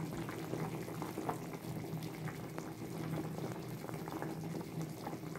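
Green banana, potato and soyabean curry boiling in an aluminium kadai, the thick gravy bubbling with many small pops.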